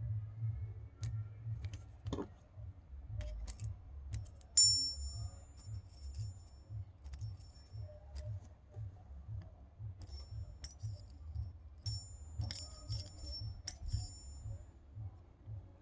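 Small metal clicks and clinks from handling the screw, bearings and tools of a spinning-reel handle knob, with a sharper click and brief high metallic ring about four and a half seconds in and more ringing clinks later.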